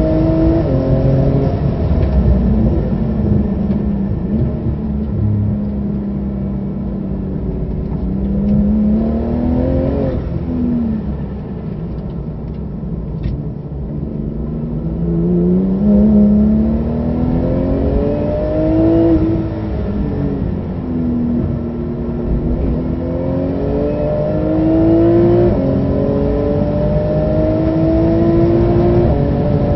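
Porsche 991 GT2 RS twin-turbo flat-six at full race pace, heard from inside the cabin. The engine note climbs through the gears with quick upshifts, falls away under braking and downshifts to its lowest around the middle, then climbs hard again, with another upshift about five seconds from the end.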